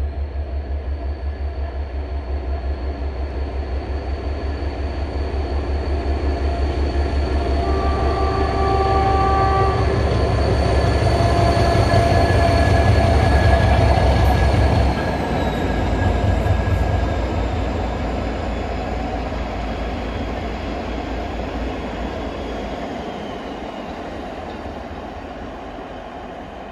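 TEM2 diesel locomotive's six-cylinder turbocharged PD1M engine running with a deep, even pulsing beat and a high turbocharger whine, growing louder as it approaches and dropping in pitch as it passes about fifteen seconds in. The tank wagons then roll by and the sound slowly fades.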